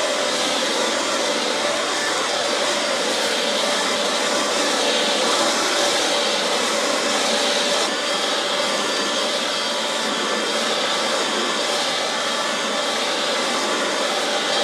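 Husqvarna Aspire 18-volt cordless leaf blower running steadily at full blow, its fan giving a loud, even rushing whine with a steady high note, blowing dry leaves.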